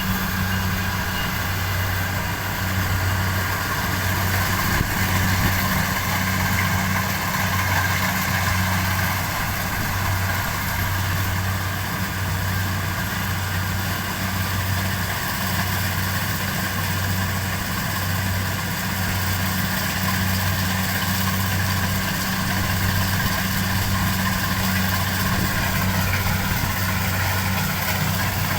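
Rice combine harvester's engine running steadily, a low hum that swells and eases in a regular rhythm, with a steady higher whine above it.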